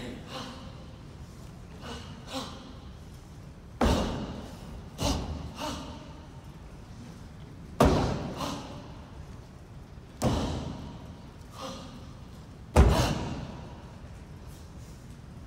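Sharp thuds and snaps from a Tang Soo Do form: feet stamping into stances on a raised stage platform and the uniform snapping with each strike, each echoing through a large hall. Four loud hits, about 4, 8, 10 and 13 seconds in, stand out among several softer ones.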